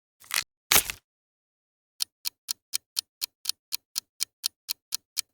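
Two short noisy bursts in the first second, then a clock-like countdown ticking sound effect, about four sharp ticks a second, starting about two seconds in.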